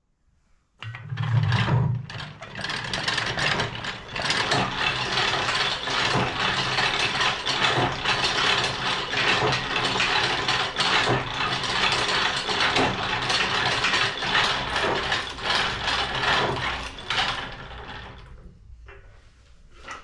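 1890s Boynton & Plummer metal shaper turned by hand at its flywheel, running through its cycle with a dense mechanical clatter of gears and linkage. It starts about a second in and winds down near the end.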